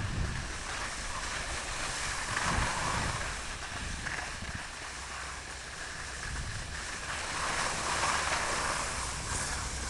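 Skis hissing and scraping over rough, tracked snow on a downhill run, with wind buffeting the microphone. The scraping swells twice, about two and a half seconds in and again about eight seconds in.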